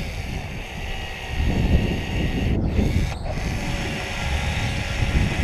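Wind buffeting the microphone: an irregular, gusty rumble with a steady hiss above it.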